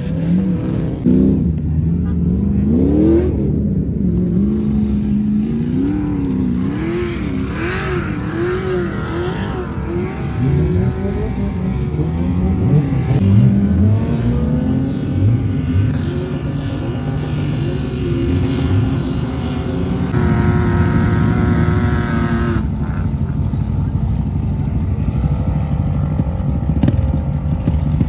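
Car engines revving hard, their pitch climbing and dropping over and over, with more than one engine running at once. A steady engine drone continues underneath.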